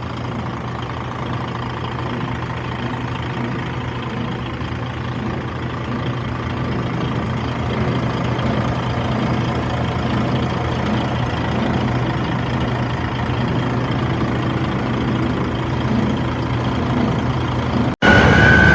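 Diesel engine of a DAF CF suction excavator truck running steadily at idle, a low even hum that slowly grows a little louder.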